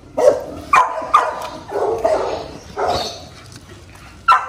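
A dog barking, about six short barks spread over four seconds.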